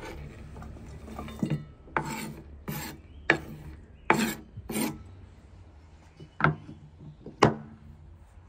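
A run of short scraping and rubbing strokes with a few sharper knocks, about nine in all and irregularly spaced.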